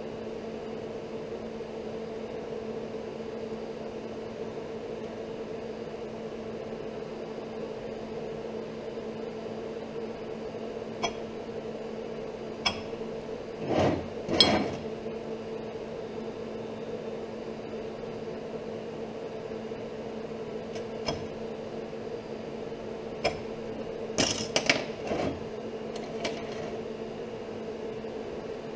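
Pieces of steel angle iron knocking and clanking as they are handled and set down on a steel workbench. The knocks are scattered, with the loudest pair about halfway through and a quick cluster near the end, over a steady low hum.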